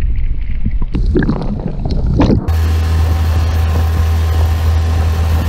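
Seawater sloshing and gurgling as a released lingcod splashes back into the sea beside the boat, the camera at the waterline. About two and a half seconds in it gives way to a steady low hum with a hiss, the boat's motor running.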